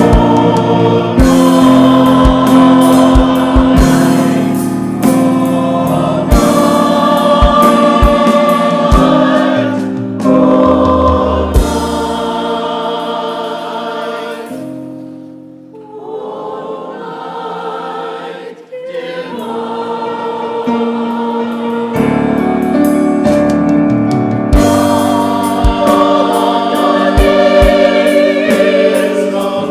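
Choir singing a sacred Christmas piece, with short low thuds under the voices. Around the middle it drops to a quiet, sparse passage, then swells back to full sound.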